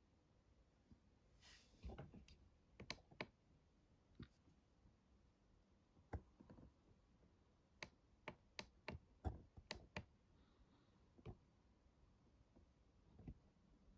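Faint, irregular clicks and light taps from a small knife being handled and turned over in the fingers, with a quicker run of clicks around the middle.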